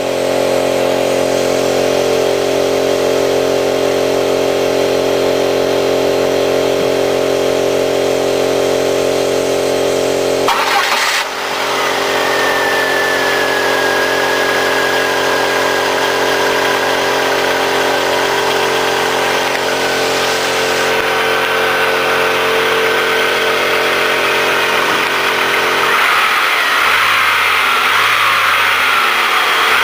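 1998 Pontiac Sunfire's 2.2-litre four-cylinder engine running steadily at idle. The sound changes abruptly about ten seconds in and again near the end, and a faint high whine, slowly falling in pitch, runs through the middle.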